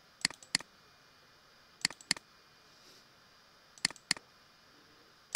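Computer mouse button clicking in pairs, each pair about a third of a second apart, four pairs roughly every two seconds.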